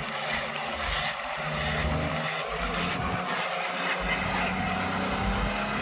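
A vehicle's engine running steadily under a constant hiss of road and wind noise.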